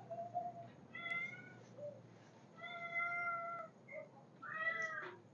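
A domestic cat meowing three times: a short meow, then a longer steady one, then one that falls in pitch at its end.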